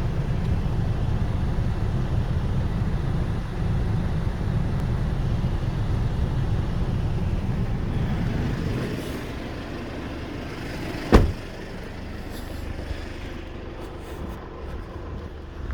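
Diesel engine of a Hyundai 770-7A running with a steady low rumble that drops in level about nine seconds in. A single sharp knock comes about eleven seconds in.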